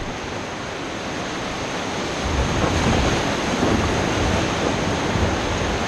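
Whitewater rapids rushing and churning around an inflatable raft, a steady noise that swells louder with more low rumble about two seconds in as the raft moves into the rapid.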